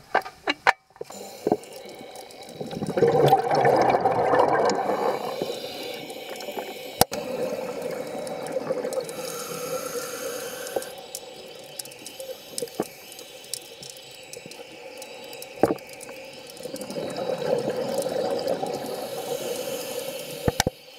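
Scuba diver breathing through a regulator, heard underwater: two long bursts of exhaled bubbles, a little after the start and near the end, with a quieter hiss of inhalation between them and a few sharp clicks.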